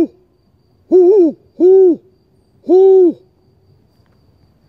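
A man imitating a great horned owl's hooting to call an owl in: four deep hoots. The first comes right at the start, then two close together about a second in, the first of those wavering slightly, and a longer last hoot about three seconds in.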